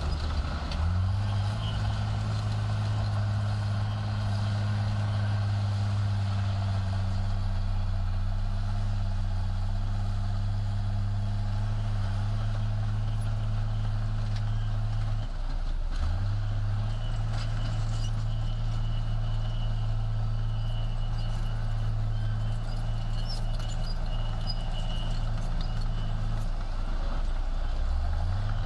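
Heavy earthmoving machine's diesel engine running at high, steady revs. The revs drop briefly about fifteen seconds in and again near the end, then climb back up.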